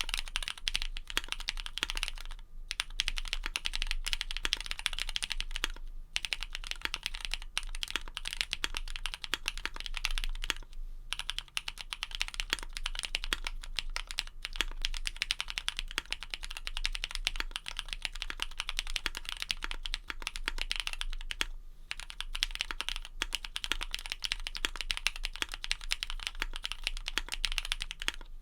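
Ai03 Vega custom mechanical keyboard being typed on fast and continuously: Cherry MX Black switches fitted with Kailh red stems, lubed and filmed, on an aluminium plate with plate and case foam, under EPBT keycaps. A dense run of keystrokes, broken by a few short pauses.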